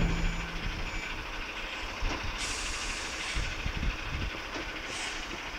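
Heil Big Bite rear-loader bin lorry running steadily while it works a skip, with a faint beep about a second in. A short hiss comes about two and a half seconds in, and a smaller one near the end.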